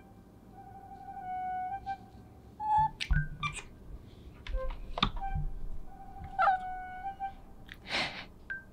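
A Scottish Fold cat meowing about three seconds in, over soft flute-like background music, with a short rustle near the end.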